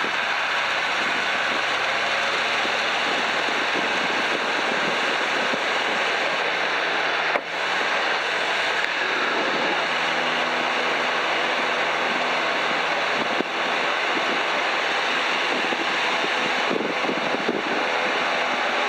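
Piper PA-12 Super Cruiser's engine and propeller at takeoff power through the takeoff roll and lift-off, under heavy wind rush on a microphone mounted outside on the wing. The sound is steady, with two brief dips in level about a third and two thirds of the way through.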